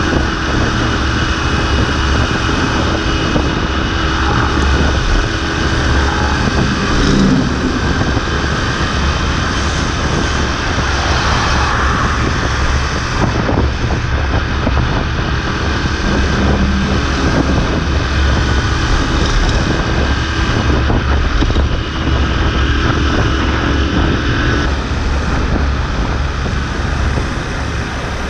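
Motorbike riding along a road: a steady engine drone under wind rushing over the camera's microphone.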